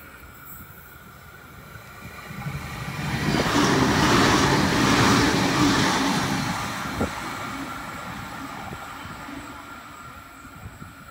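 NSW TrainLink Xplorer diesel multiple unit passing through the station without stopping. It builds up over a couple of seconds, is loudest for a few seconds, then fades away steadily as it departs.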